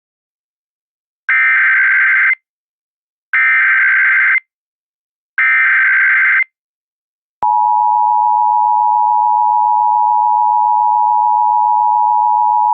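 Emergency Alert System SAME header: three bursts of data screech, about a second each and a second apart, encoding a child abduction emergency (AMBER Alert). About seven seconds in, the steady EAS attention tone starts abruptly and holds.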